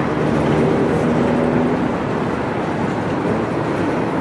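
Empty coal hopper cars rolling past on the rails, a steady run of wheel-on-rail noise with a few faint tones in the first two seconds.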